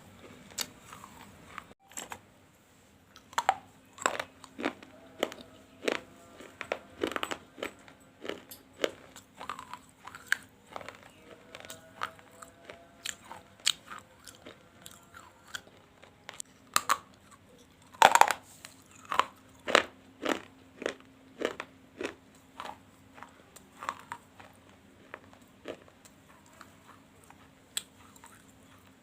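Brittle crunching of baked clay being bitten and chewed, one sharp crunch after another about once a second. A cluster of the loudest bites comes about two-thirds of the way through.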